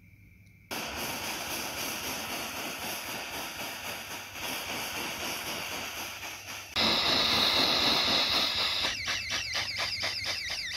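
Jeweller's soldering torch flame hissing steadily as it heats a silver ring. It starts suddenly about a second in and grows louder near seven seconds. From about nine seconds a fast, even pulsing of three or four beats a second runs through the hiss.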